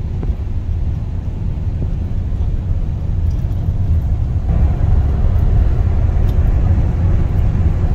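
Cabin noise inside a moving Nissan NV350 Premium van: a steady low rumble of engine and road, growing louder and fuller about four and a half seconds in.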